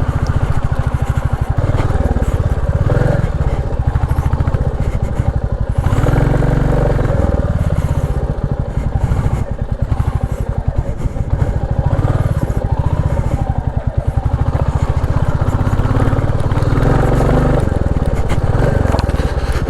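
Royal Enfield Classic 350's single-cylinder engine pulling at low revs under load, each firing stroke distinct in a steady, even beat, as the motorcycle rides a rough off-road trail carrying a pillion.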